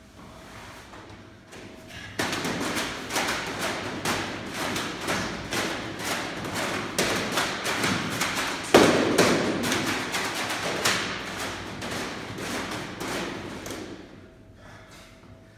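Heavy battle ropes slapping the rubber gym floor in quick waves, about two slams a second, starting about two seconds in and stopping near the end; one hit midway is louder than the rest.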